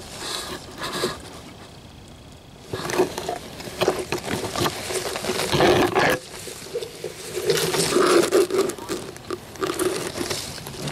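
Brush and leaves rustling and crunching close to the microphone as a ghillie-suited player crawls through dense undergrowth. A few light rustles at first, then steady bursts of crackling from about three seconds in.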